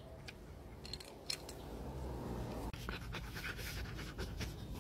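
Samoyed panting with its mouth open, with a few light clicks mixed in.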